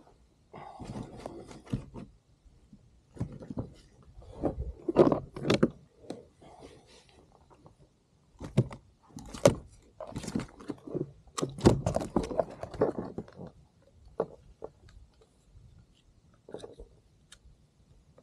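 Irregular knocks, clunks and rattles of a freshly caught snapper and fishing gear being handled on a kayak, as the fish is unhooked and readied for measuring.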